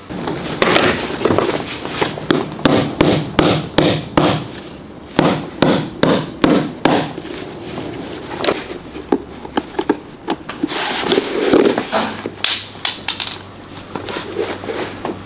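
Hand tool striking and working on a leather boot's sole: a run of sharp knocks about two a second, then a few longer, rougher strokes.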